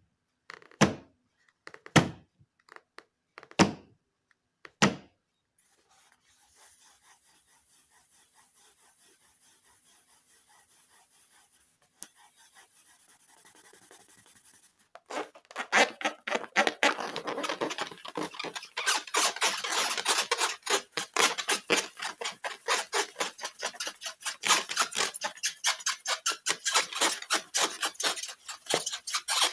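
A few sharp thumps in the first five seconds, then near quiet, then from about halfway a long, fast run of scratchy rasping and crackling as slime and balloon material are handled.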